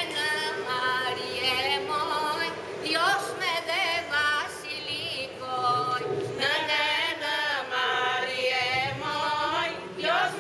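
A group of women singing together without instruments: long held notes that waver and bend in ornamented turns, phrase after phrase, with short breaks between phrases.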